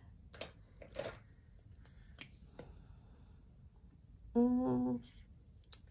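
Faint clicks and light paper handling while a savings challenge card is marked with a pen. About three-quarters of the way through, a woman hums a short steady 'mm'.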